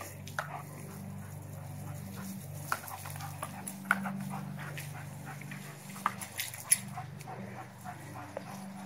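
A dog making short, scattered sounds as it snaps at the spray from a garden hose, with a steady low hum underneath.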